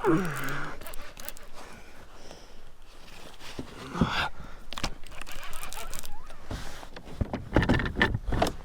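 Scattered knocks, scrapes and rustles of gear being handled, with a brief voice sound at the start and a quick run of knocks near the end.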